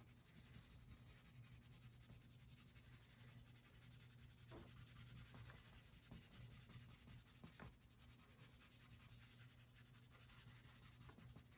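Very faint scratching of a crayon rubbed back and forth across paper as an area is coloured in, with a couple of light ticks.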